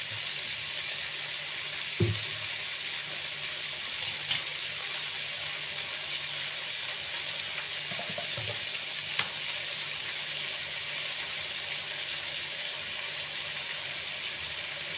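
Chicken and chicken feet in spice sauce sizzling and simmering steadily in a wok, an even crackling hiss with a few brief pops.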